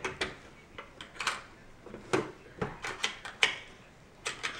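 Plastic toy pieces being handled: a series of irregular light clicks and knocks.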